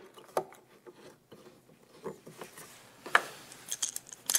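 Metal F-style bar clamps being fitted and tightened on a wooden door panel on an assembly table: light, scattered clicks and knocks as the sliding jaws and screws are worked, with a sharper knock about three seconds in and a few more clicks near the end.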